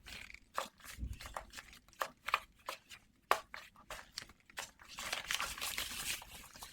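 Close-miked crinkling and tearing handling sounds: scattered sharp crackles, then a longer, denser tearing rush about five seconds in.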